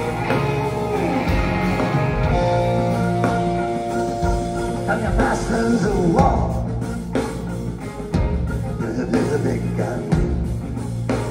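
Live rock band playing an instrumental passage, recorded from the audience: guitars, bass and drums, with long held notes over a steady beat.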